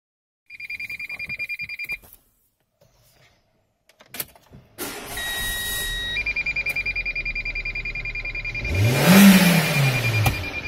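Dashboard warning chime beeping rapidly, then a click, and the Renault Scenic II's 1.6-litre K4M four-cylinder petrol engine starts about five seconds in and idles while the chime beeps on. About two seconds before the end the engine is revved once, pitch rising and falling, the loudest moment.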